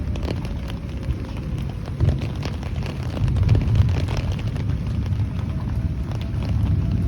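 Outdoor tornado warning siren wailing faintly, a thin steady tone that sags slightly in pitch and swells again near the end. A heavy, uneven low rumble runs under it and is the loudest part.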